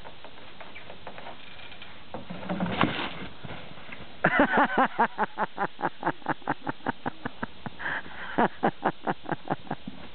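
A dog barking in a long, rapid string of short yaps, about five a second, starting about four seconds in, pausing briefly near eight seconds and then carrying on.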